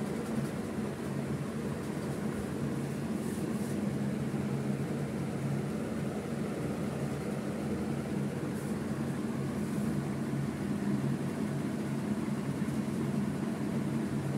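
Steady low mechanical hum that holds the same pitch and level throughout.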